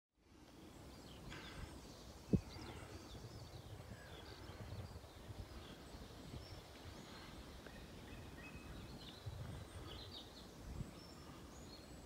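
Faint outdoor birdsong: scattered short chirps and calls from several small birds over a low, uneven rumble. A single sharp knock stands out about two seconds in.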